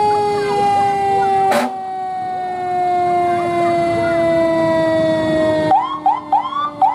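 Fire engine siren sounding in a long, steady wail whose pitch falls slowly, with a sharp knock about one and a half seconds in. Near the end, a few quick rising siren chirps.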